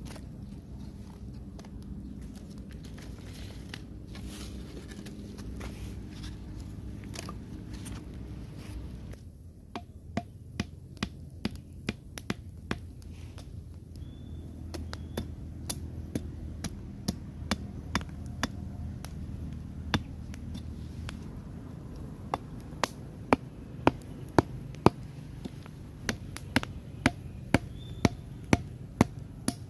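Repeated sharp chopping or knocking strikes in runs of about two a second, starting about ten seconds in and coming back in several bursts, over a steady low rumble.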